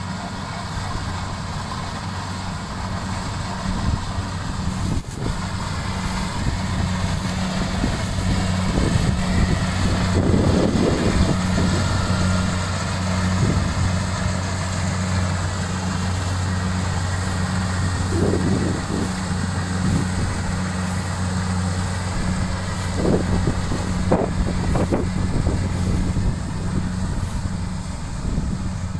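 An engine running steadily with a low, even hum, with irregular short rustling or knocking noises over it at times.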